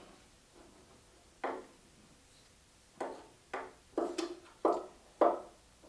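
About seven light knocks and taps of a tool on wood, one about a second and a half in and the rest close together over the last three seconds, as the depth of a hole in the wooden bench is measured.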